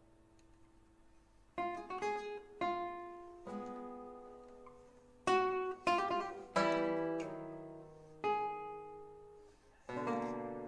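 Solo guitar playing a slow nocturne. A held note fades away, then plucked single notes and chords come in about a second and a half in, each left to ring out and die away, with a fuller chord near the end.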